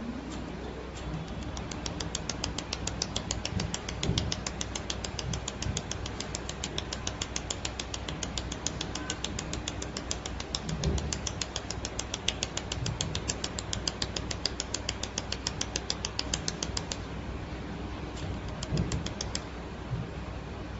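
Pulsed laser welding machine firing a rapid, even train of sharp ticks, one per laser pulse, about six a second, over a steady machine hum. The ticking stops about 17 s in, then resumes briefly near the end.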